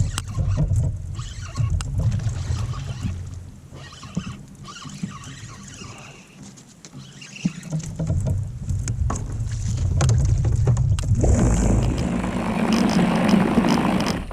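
Rumbling and knocking from a kayak being handled and paddled on the water, with scattered clicks. A louder rushing, splashing-like noise builds from about eleven seconds in.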